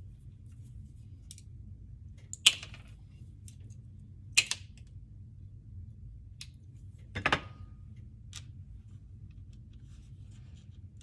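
Scissors cutting: three sharp snips, with a few fainter clicks between them.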